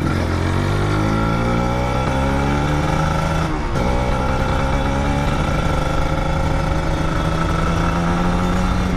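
Motorcycle engine accelerating, its pitch rising, with a brief break about three and a half seconds in as it shifts up a gear, then climbing steadily again.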